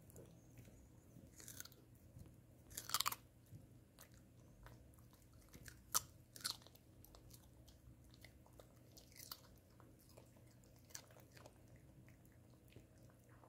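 Shih Tzu chewing and biting a chunk of carrot: scattered soft clicks of mouthing, with a few louder crunches, the strongest about three seconds and six seconds in.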